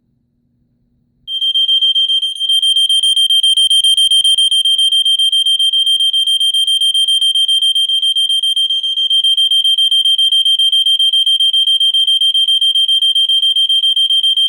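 Gentex 7100F photoelectric smoke detector's piezo horn sounding its alarm on the Test 1 setting of its test knob, confirming the alarm works. One loud, shrill, steady tone that starts about a second in and cuts off suddenly at the very end.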